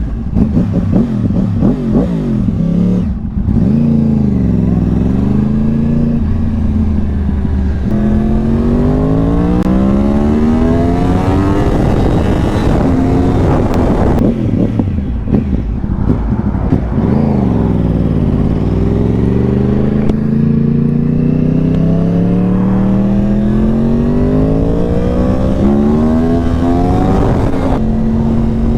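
Yamaha R1 big-bang (crossplane) inline-four engine accelerating through the gears, its pitch climbing and dropping back at each upshift. Twice, about 4 seconds in and again around 18 seconds, it falls away before pulling hard again.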